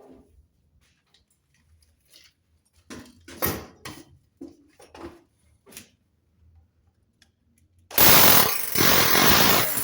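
Handling knocks and clicks, then about eight seconds in a power drill starts up loud and keeps drilling, most likely through the metal sheet or into the masonry for a wall plug.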